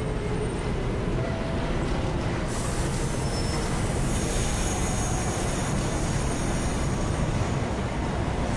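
Subway train running along the track with a steady rumble. A high hiss comes in about two and a half seconds in, and faint high wheel squeal joins from about four seconds.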